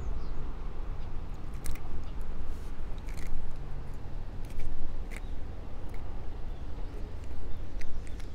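Handling noise: scattered small clicks and crunchy rustles over a steady low rumble.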